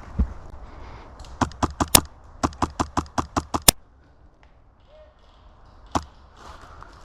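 Airsoft gun firing in rapid semi-automatic shots: a short string of four, then about eight more at five or six a second, followed by one lone shot near the end.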